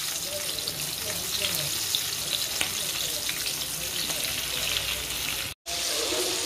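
Breaded chicken drumsticks deep-frying in hot oil in a pan: a steady, dense crackling sizzle of many small pops. The sound drops out for a moment about five and a half seconds in.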